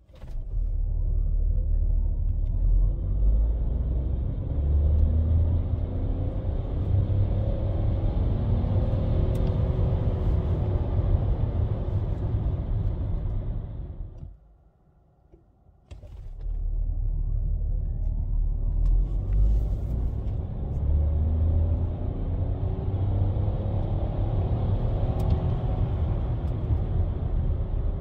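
Renault Austral E-Tech full hybrid 200 accelerating hard from standstill, twice, heard from inside the cabin. Each run is a deep rumble from its three-cylinder turbo petrol engine and electric motors, rising in pitch as speed builds. The first run ends about fourteen seconds in, and after a brief quiet lull the second run starts from rest in Sport mode.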